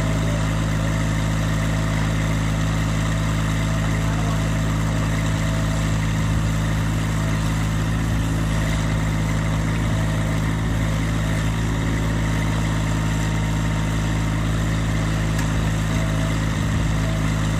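Massey Ferguson GC1723E subcompact tractor's three-cylinder diesel engine running at a steady speed while its backhoe is worked.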